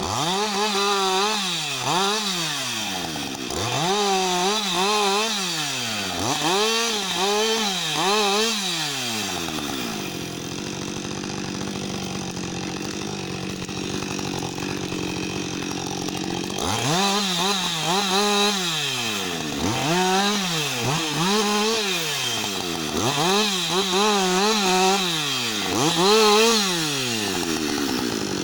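Husqvarna 562XP two-stroke chainsaw bucking a fallen log: the engine revs up and drops again over and over, about once a second, as the chain goes into the wood. For several seconds in the middle it runs steadily at a lower speed between cuts, then the revving cycles start again.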